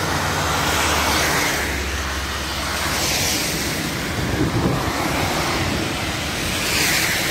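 Road traffic on a wet road: cars passing close by one after another, their tyres hissing on the wet asphalt, each pass swelling and fading, over a steady low rumble.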